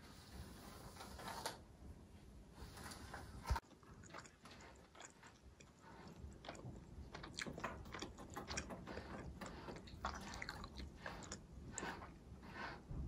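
Soft, scratchy strokes of a pet brush through a dog's coat, then a run of small clicks and crunchy sounds in the second half as the dog mouths and chews while being held.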